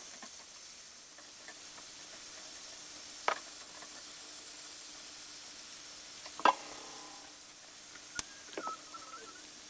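Pork, komatsuna and wood ear mushrooms sizzling in a frying pan during a stir-fry, a steady hiss. Sharp clinks of utensils against the pan cut through it, the loudest about six and a half seconds in with a brief ring.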